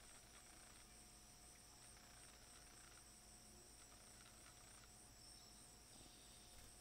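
Faint, steady, high-pitched insect chorus of crickets over otherwise near silence.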